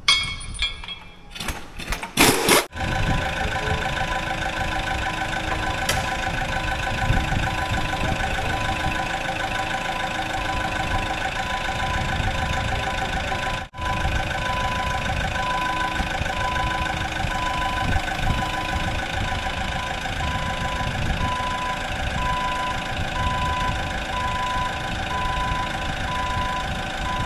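A machine's engine running steadily with a beeping warning alarm, after a few sharp knocks at the start. The engine comes in suddenly about three seconds in.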